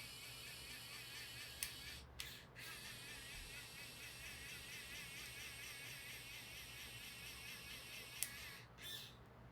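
3D pen's filament-feed motor running with a faint, high wavering whine as it extrudes plastic, cutting out briefly twice. Three sharp clicks come through it.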